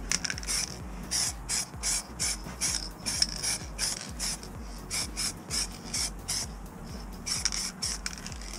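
Holts aerosol spray paint can hissing in quick short bursts, about two a second, as the nozzle is pressed on and off.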